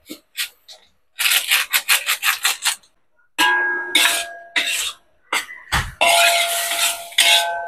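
Metal spatula scraping and tossing food around a metal wok. A quick run of short scrapes is followed by longer scrapes with a squealing metallic ring, and there is a dull knock about three-quarters of the way through.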